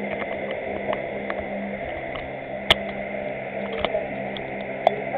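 Steady hiss with a low hum, broken by a few isolated sharp clicks, the loudest a little under three seconds in and another near the end.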